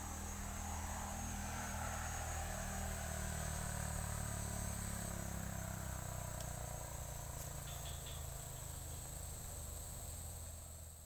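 Steady buzzing and chirring of insects, with a low steady hum underneath; it fades out near the end.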